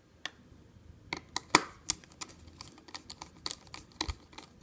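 Irregular sharp clicks and light taps as a small Torx screwdriver works the screws on a hard drive's circuit board, with the drive being handled on a glass desktop.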